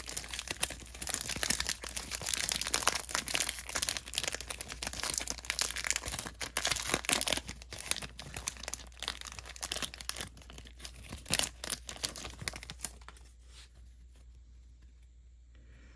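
Foil wrapper of a Panini Phoenix basketball card pack crinkling and tearing as it is ripped open by hand. The crackling stops about three seconds before the end.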